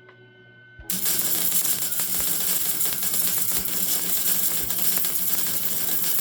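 Die grinder grinding a steel bracket: a loud, steady hiss-and-grind that starts about a second in.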